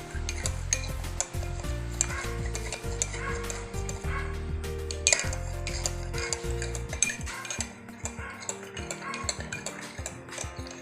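A spoon stirring honey, calamansi juice and warm water in a drinking glass, clinking against the glass several times a second, with background music underneath.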